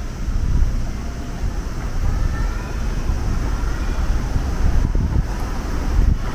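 Strong typhoon wind buffeting the microphone: a loud, low, gusting rumble that rises and falls throughout.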